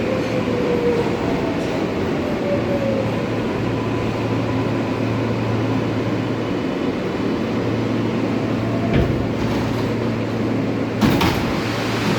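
R143 subway car running, heard as a steady rumble with a low hum and a whine that falls in pitch over the first few seconds. A click comes about nine seconds in and a heavier knock about eleven seconds in.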